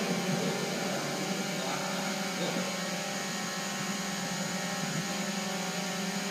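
Steady hiss and low hum of a large sports hall, with faint voices of onlookers.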